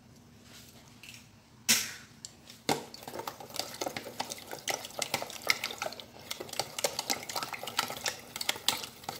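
Chopsticks beating eggs into a starch-and-water mix in a plastic tub: a rapid run of clicking taps against the plastic, starting a little under three seconds in after two sharp knocks.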